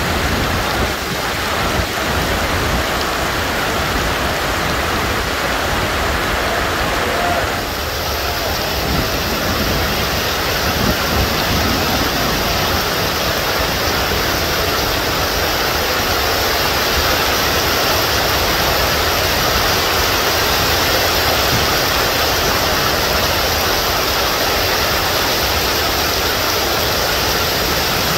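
Heavy rain pouring down steadily, a dense unbroken hiss; about eight seconds in it turns brighter and hissier.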